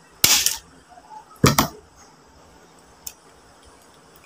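Mukbang eating sounds from a boiled mud crab leg held to the mouth: two loud, short bursts of shell and meat noise about a second apart, then a faint click about three seconds in.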